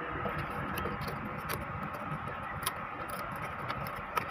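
Light plastic clicks and scratches, scattered and irregular, as a white plastic part of an inkjet printer's paper-feed mechanism is handled and fitted back into place.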